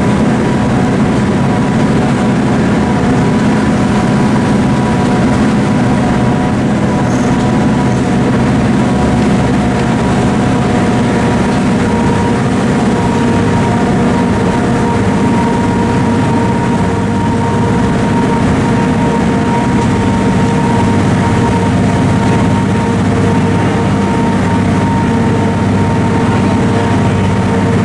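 Cog railway train running steadily, heard from inside the passenger car: a constant engine-and-running drone with a few steady whining tones over it.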